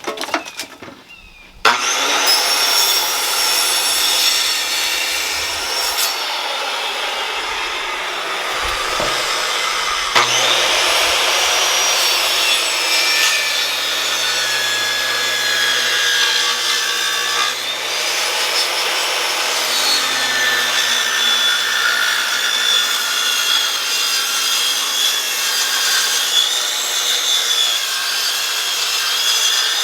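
A circular saw starting up about two seconds in and running steadily as it rips along a 2x12 yellow pine board. Its motor whine wavers a little as the blade loads in the wood.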